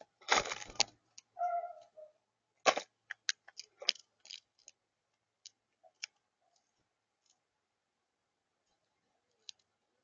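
Common grackle at a feeder table: a rustling burst, a brief squeaky note, then a run of sharp clicks and taps as it moves about and pecks on the plastic tub and peanuts, thinning out after about five seconds.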